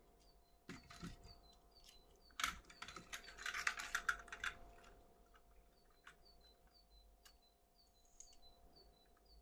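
Scattered clicks and crinkles from handling a toy and its plastic packaging, densest between about two and a half and four and a half seconds in. A faint high chirp repeats about twice a second in the background.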